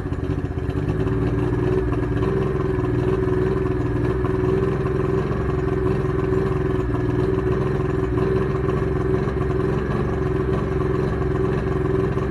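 Outboard motor on a Lowe Fishing Machine 165S aluminium fishing boat idling steadily, freshly started, with a low even engine note that grows a little louder about a second in.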